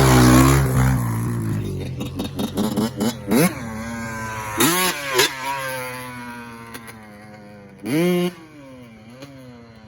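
Dirt bike engine passing close, then riding away, revving up sharply several times and easing off in between as it fades into the distance.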